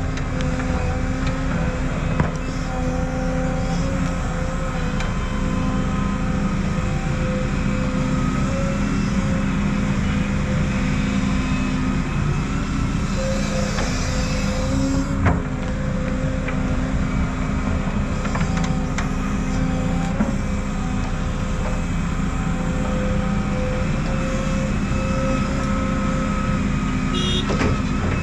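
Heavy earthmoving equipment's diesel engine running steadily, with a few sharp knocks along the way.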